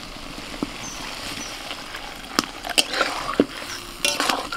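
Water poured from a steel mug into a hot wok of fried masala, hissing and sizzling steadily as it hits the oil. A few sharp clinks of a metal spatula against the wok come through it, most of them in the second half.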